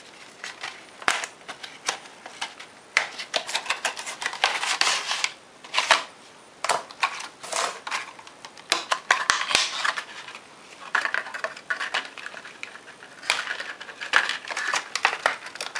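Plastic and cardboard packaging of a Speck CandyShell iPhone case crinkling, crackling and clicking as it is opened by hand, with a run of irregular sharp clicks throughout: the case is pulled from its box and out of a clear plastic wrapper.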